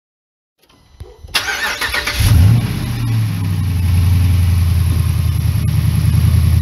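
Dodge Ram's 5.7 HEMI V8, fitted with a custom 4-inch intake, starting up: it cranks briefly, catches about a second and a half in, revs up for a moment, then settles into a steady idle.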